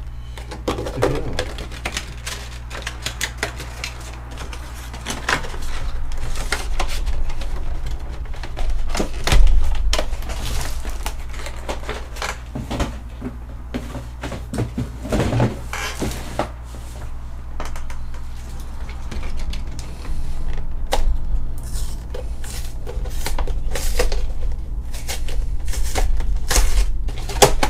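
Clear plastic trays and cardboard collection boxes being handled and set down: irregular clicks, knocks and crinkles of packaging, over a steady low hum.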